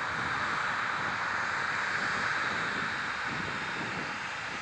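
Boeing 737-900ER's CFM56-7B jet engines running at low thrust as the airliner rolls along the runway after landing: a steady rushing hiss with a low rumble, mixed with some wind on the microphone.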